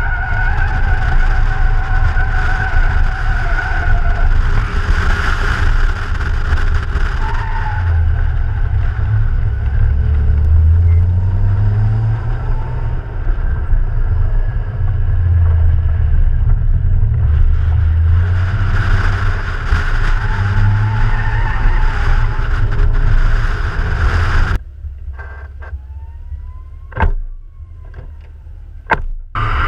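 BMW E36 Compact's 2.8-litre straight-six driven hard on track, heard through heavy wind buffeting on an outside-mounted microphone. The engine note rises twice as the car accelerates, and the tyres squeal through corners near the start and again around two-thirds through. About five seconds before the end the sound cuts abruptly to a much quieter stretch with a few sharp clicks, then returns loud.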